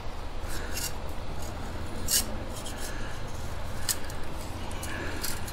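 Small metal clicks and scrapes from a flat-blade screwdriver working the magazine tube cap and spring retainer of a Remington 870 pump shotgun. A few sharp clicks come spread through the sound, over a low steady rumble.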